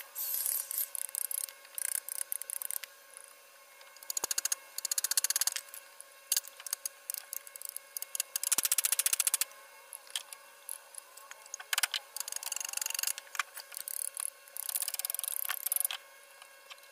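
A hand chisel or carving tool scraping and shaving a wooden sofa arm piece: short, irregular scraping strokes, some with a fine rasping grain, and light taps between them. A faint steady hum runs underneath.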